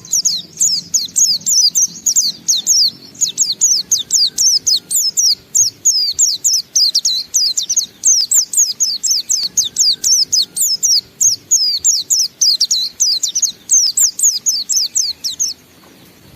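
White-eye (pleci) singing a long, unbroken 'ngalas' song: a fast run of high, sliding chirps, several a second, that stops about a second before the end.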